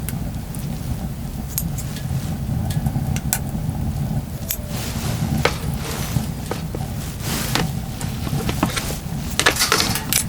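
Scattered light clinks and knocks, as of camping dishes or utensils being handled, over a steady low rumble.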